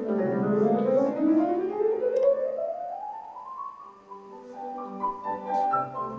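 Music: a single pitched tone slides slowly upward for about three and a half seconds, then gives way to a passage of separate, steadily held notes.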